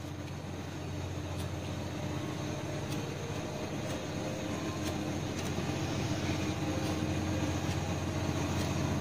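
Steady low background hum, with a few faint scattered clicks of small scissors snipping fur.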